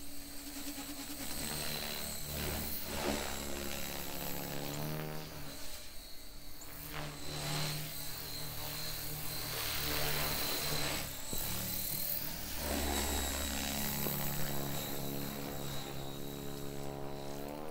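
Oxy 4 Max electric RC helicopter flying: a steady high motor whine over the rotor buzz, which rises and falls in pitch as it manoeuvres.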